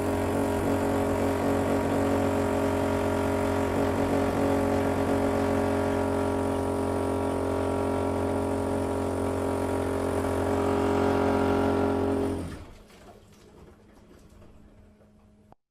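A motor running at a steady pitch, then dying away about twelve seconds in, leaving a faint hum that cuts off near the end.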